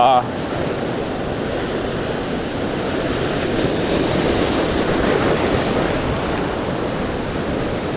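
Rough surf breaking and washing over a rocky shoreline: a continuous rushing wash that swells a little around the middle, with wind blowing onto the microphone.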